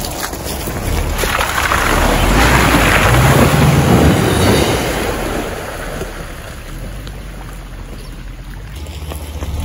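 Subaru Forester's flat-four engine revving under load as it drives through a muddy, water-filled rut, with mud and water splashing from the tyres. The sound builds to its loudest about three to four seconds in, then fades as the car pulls away up the track.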